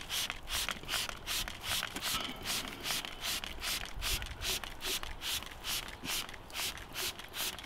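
Hand trigger spray bottle squirting a cleaning liquid onto a boat hull: a rapid, even run of short hissing squirts, about three a second.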